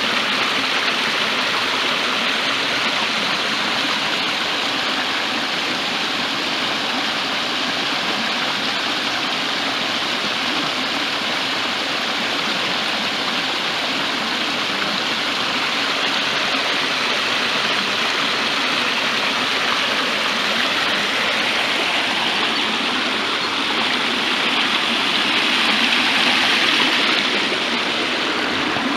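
A small hill stream running, a steady rush of flowing water. It grows a little louder and brighter for a few seconds near the end.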